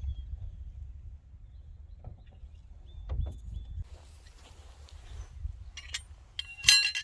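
Metal work on the steel frame of an old disc tiller: a few faint clicks over a steady low rumble, then near the end a sharp metallic clank that rings briefly.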